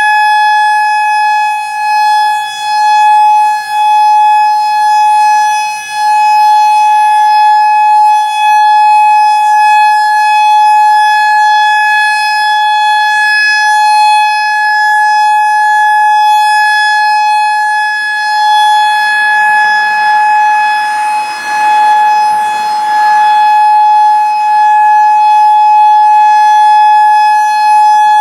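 Federal Signal EOWS 612 electronic outdoor warning siren sounding the Alert signal: one steady, loud, high tone that neither rises nor falls, with a few brief dips in loudness in the first quarter. A faint rushing noise joins underneath about two-thirds of the way through.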